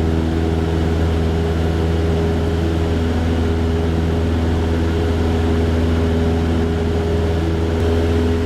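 Cessna 172's piston engine and propeller droning steadily at climb power.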